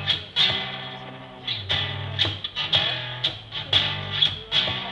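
Acoustic guitar playing a blues phrase: a run of sharply plucked notes that ring on over a sustained low bass note.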